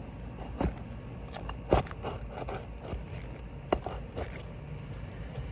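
Scraping and clicking of a tool worked under an asphalt shingle to pull out a roofing nail, with several sharp ticks and knocks, the loudest a little under two seconds in.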